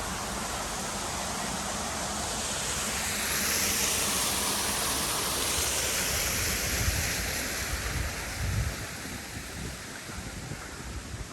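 Rushing water of Huntington Falls, an artificial waterfall: a steady rush that swells a few seconds in, then fades toward the end. A few low rumbles of wind on the microphone come in the second half.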